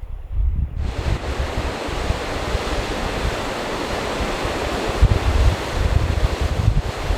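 Ocean surf, a steady rushing wash that starts abruptly about a second in, with wind buffeting the microphone in low rumbles throughout.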